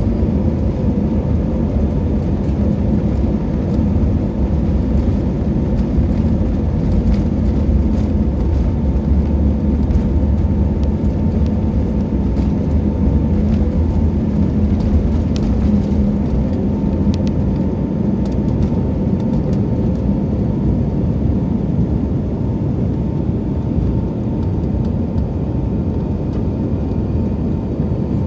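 Jet airliner cabin noise in flight: a steady, loud rumble of engines and airflow with a faint steady hum over it.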